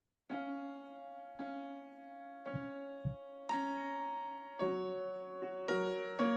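Recorded music begins just after the start: slow piano chords, struck about once a second, each left to ring.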